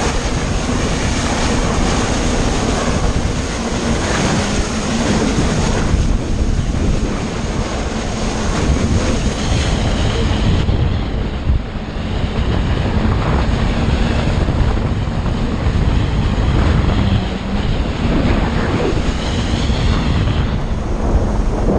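Yamaha WaveRunner personal watercraft running at speed on open sea: heavy wind buffeting on the microphone and rushing spray, with a steady low engine drone underneath.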